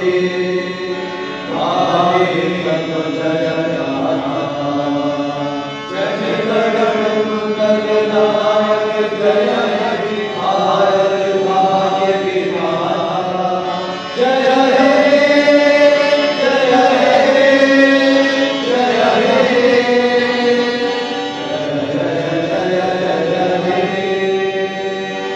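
Vocal chanting in long, slow, drawn-out phrases, louder from about halfway through.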